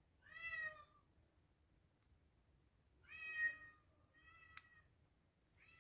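Domestic cat meowing: four short meows a second or more apart. The third is faint, with a small click in it, and the last starts near the end.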